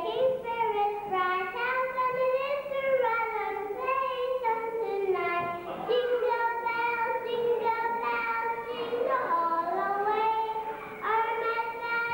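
A young child singing a song solo, holding each note for about a second and sliding between pitches, with a short pause for breath a little before the end.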